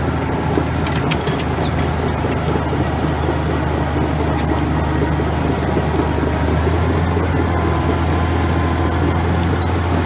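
David Brown 50 ITD crawler's diesel engine running steadily under load, pulling a four-furrow drag plough, growing a little louder past the middle. Scattered clicks and rattles from the tracks and plough.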